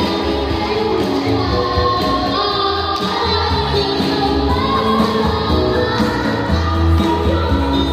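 Children singing a Tagalog Christian song of thanks to God into microphones, over instrumental accompaniment with a steady bass pulse.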